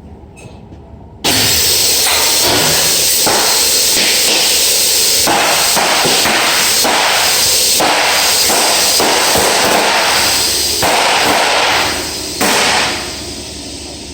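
Kitchen hood fire suppression system discharging during a balloon test, gas rushing through the piping and nozzles with a loud hiss. The hiss starts suddenly about a second in, runs for about eleven seconds, briefly dips and comes back, then fades near the end.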